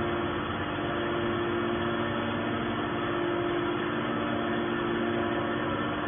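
Hydraulic baler's power unit, its electric motor and pump, running steadily with a constant hum and no pressing stroke.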